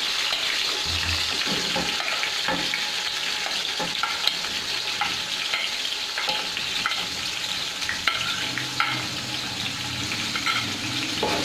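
Sliced onions and garlic cloves sizzling steadily in hot oil in a metal wok as more onion pieces are dropped in, with scattered light clicks of pieces landing in the pan.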